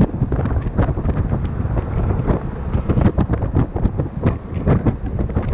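Strong wind buffeting the microphone: a loud, uneven low rumble with constant crackling pops.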